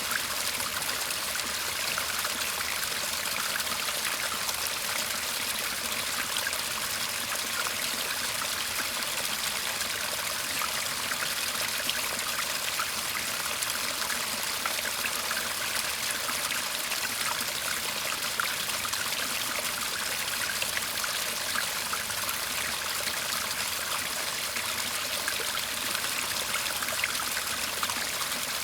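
A shallow garden stream burbling and trickling steadily, a dense patter of small splashes with no let-up.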